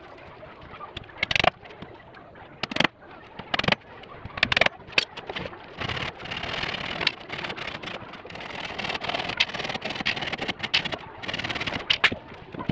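Loose wooden slats knocking and clattering against each other and the wooden frame as they are handled, with several sharp knocks and a longer stretch of wood rubbing and scraping in the middle.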